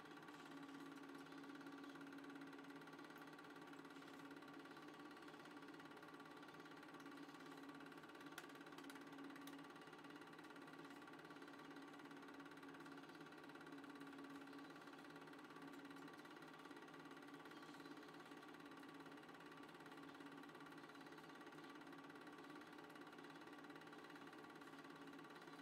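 Near silence: a faint steady hum with a few soft clicks.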